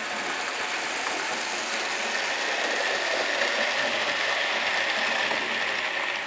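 Model trains running on layout track: a dense, steady clatter of small wheels on the rails, with a faint whine through the middle as a long passenger train passes close by.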